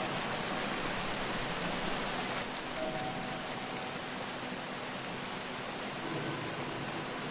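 Stream water rushing over rocks, a steady hiss of flowing water.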